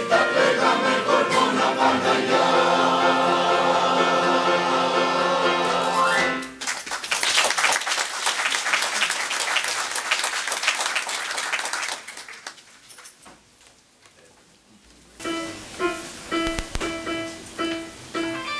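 Mixed choir with electronic keyboard accompaniment ends a song on a held chord about six seconds in. Audience applause follows, then fades out. A few seconds after the applause the keyboard starts a figure of evenly repeated notes.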